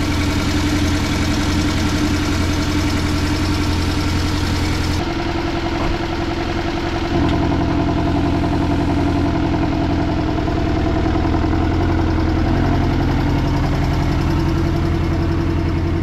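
Porsche 718 Cayman S turbocharged flat-four idling and then creeping out at low speed, with a light, rhythmic ticking over the engine note. This is the cold-start tick the owner puts down to the hydraulic lifters, though some owners blame the direct injectors; it fades as the oil warms.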